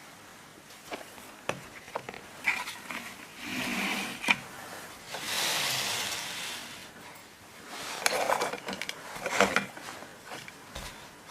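Materials being handled on a work surface: scattered small knocks and clicks, with two longer stretches of rustling and scraping in the middle and a quick run of clatter near the end.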